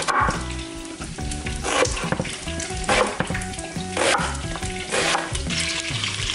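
Chef's knife slicing through an onion onto a wooden cutting board, about one sharp stroke a second, over background music and the steady sizzle of bacon frying in a stock pot.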